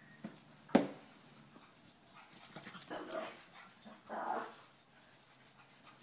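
Small dog growling in a few short rough bursts in the middle, with one sharp knock a little under a second in.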